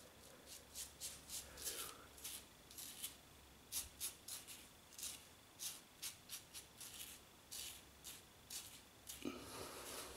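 Gillette Slim Twist double-edge safety razor scraping through lathered stubble on the cheek and neck. It comes as a faint, quick run of short scraping strokes, about two or three a second.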